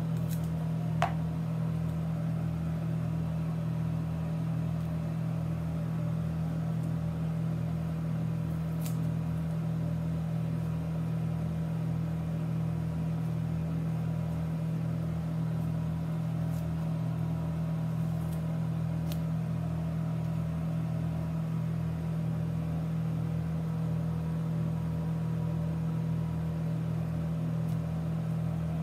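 A steady low mechanical hum with a faint regular pulsing beneath it, and a few faint ticks, the clearest about a second in.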